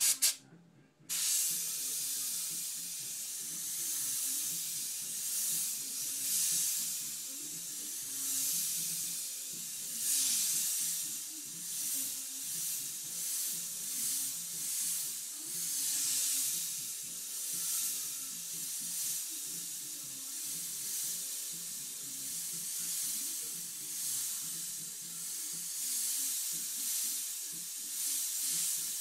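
Airbrush hissing as air and paint spray from its nozzle, swelling and easing every second or two as the trigger is worked through the lettering strokes. A short sharp noise comes right at the start, before the hiss begins about a second in.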